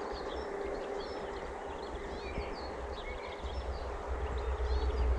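Oscillating garden sprinkler spraying water with a steady hiss, with birds chirping throughout. Wind rumbles on the microphone, growing stronger over the last couple of seconds.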